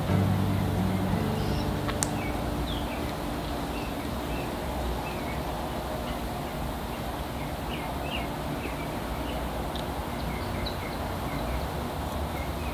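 Small birds chirping again and again in short high notes over a steady hiss. There is a low hum in the first second or so and a single sharp click about two seconds in.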